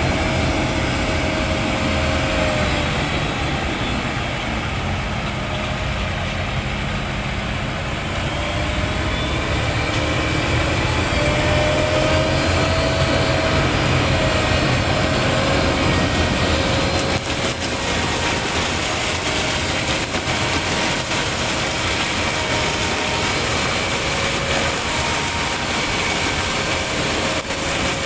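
Heavy diesel machine with cutting blades running steadily under load as it resumes work after its cutter blades were replaced. The engine pitch wavers slightly in the first part, then holds steady.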